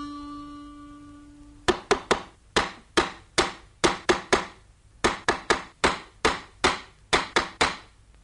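A held harmonica note dying away, then a quick, uneven series of sharp wooden knocks, about three a second, lasting some six seconds.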